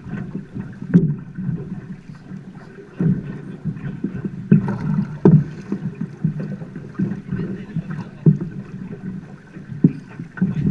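Water slapping against a drift boat's hull on a fast river, with irregular knocks from the boat and oars about every second or two, and wind on the microphone.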